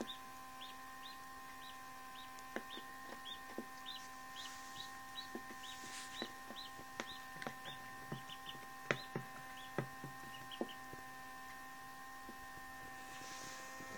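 Newly hatched duckling cheeping in a plastic brooder box: short high peeps about two a second that stop about ten seconds in, with scattered light taps of its beak against the box.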